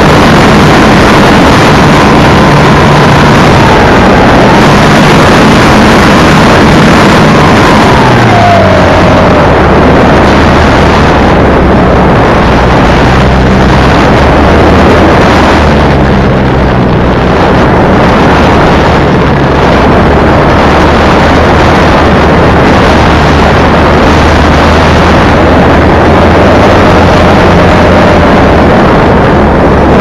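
Air rushing over a camera mounted on a radio-controlled model plane in flight, with the steady whine of the plane's motor and propeller. About eight seconds in, the whine drops in pitch as the throttle is cut back, and the air rush carries on; a fainter whine comes back near the end.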